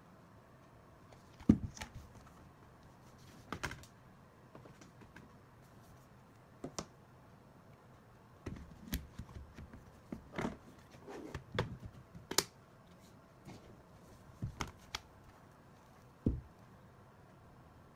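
Rugged plastic iPad Pro case being handled and taken apart: irregular clicks, taps and knocks of hard plastic parts against each other and the desk, with a sharp thump about a second and a half in and a busy run of clicks in the middle.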